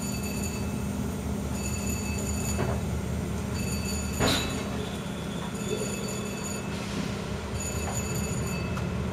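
Passenger railcars rolling slowly apart on the track, with a steady low hum and thin high-pitched wheel squeals that come and go. One sharp metallic clank comes about four seconds in.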